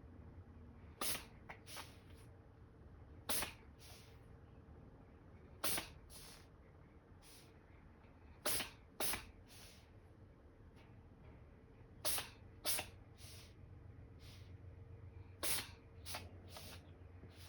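A cat sneezing over and over: about ten short, sharp sneezes a few seconds apart, several of them in quick pairs. The owner puts the sneezing down to seasonal allergies.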